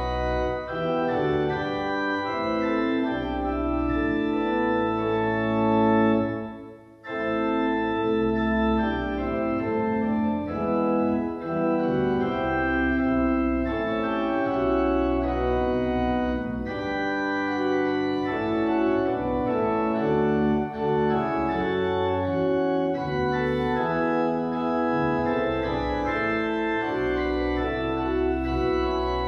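Church pipe organ playing slow, held chords with deep bass notes underneath, breaking off briefly about seven seconds in between phrases.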